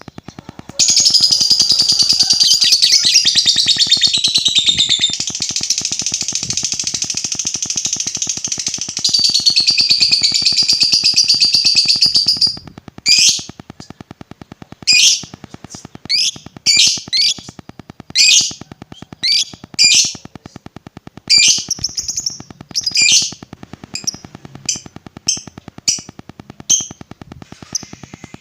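Lovebird singing: a long, unbroken high-pitched chattering trill of the kind lovebird keepers call ngekek panjang, then, about halfway through, a series of short sharp chirps with brief gaps between them.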